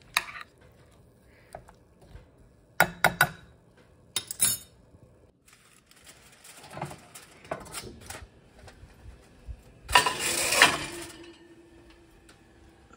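A ceramic casserole dish and metal spoon being handled: scattered clinks and knocks, then a louder scraping clatter about ten seconds in as the dish is slid onto the pizza stone on the oven rack.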